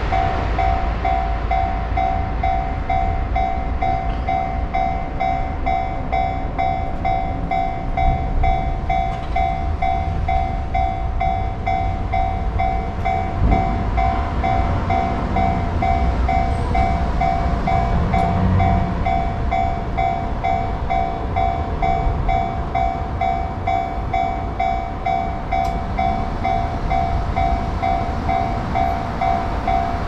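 Railway level-crossing warning bell ringing, a fast and even repeating electronic clang, over a low rumble.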